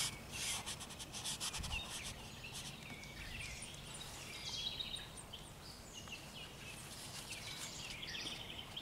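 Faint outdoor ambience with small birds chirping now and then; a few faint scrubbing brush strokes on the canvas in the first second.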